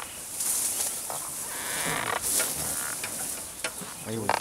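Dry tall grass rustling and crackling, with creaks, as a riding elephant walks through it.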